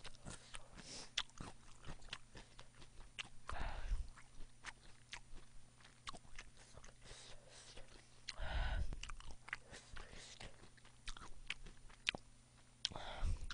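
Close-miked chewing of a mouthful of spicy boneless chicken feet: many small wet clicks and smacks of a firm, chewy bite. There is a louder swell of sound about four seconds in and again about nine seconds in.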